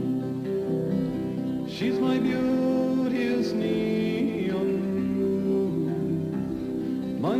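Background music: an acoustic guitar-led folk song, in an instrumental passage between sung lines.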